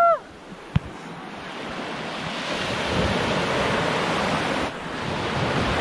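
Sea surf washing onto the shore: a wave swell builds from about a second in, eases off just before the end, then a second one rises. A brief high call sounds right at the start, and there is a single sharp click just under a second in.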